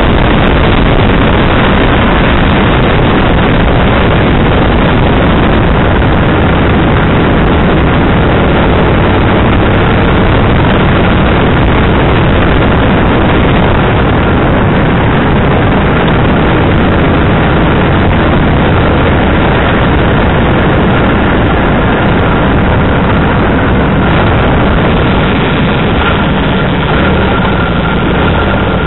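Kawasaki VN1500 V-twin motorcycle running steadily at road speed, its engine buried in loud rushing road and wind noise. The noise eases a little near the end as the bike slows for a junction.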